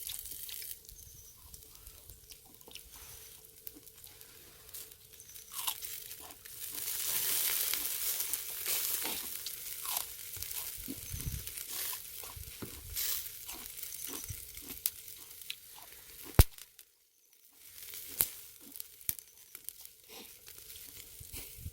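Close-up eating sounds: crunching and chewing of food, with pork sizzling and crackling over a charcoal brazier. The sizzling hiss swells for a few seconds from about six seconds in, and a sharp click near the end is followed by about a second of dead silence.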